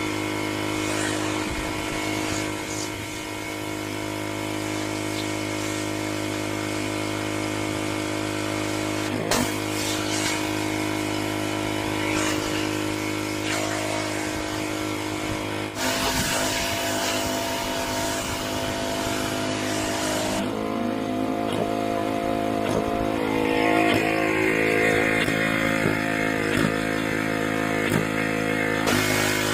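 Pressure washer running steadily: the engine hum sits under the hiss of the water jet.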